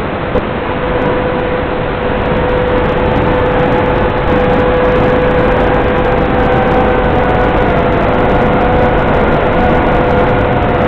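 FPV quadcopter's motors and propellers whining steadily under heavy hiss and wind noise, carried over the analog video link. One tone holds steady while higher tones drift slowly up and down in pitch, and it grows a little louder about four seconds in.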